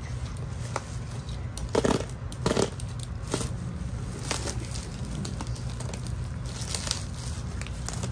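Plastic parcel wrapping and packing tape crinkling and crackling as the package is cut and pulled open by hand, in irregular rustles, the loudest about two seconds in and again half a second later. A steady low hum runs underneath.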